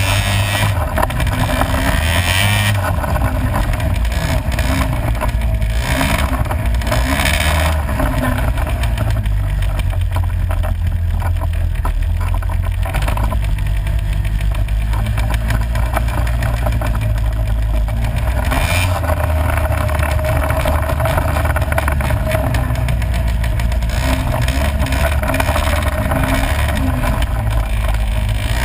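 ATV engine running continuously while riding a dirt trail, heard close up from a camera on its own handlebars. Wind rushes over the microphone now and then.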